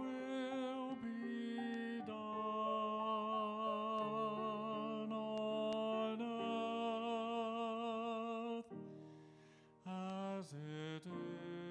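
A slow hymn: a singer holding long notes with vibrato over sustained grand piano chords, with a short pause about nine seconds in before the music resumes.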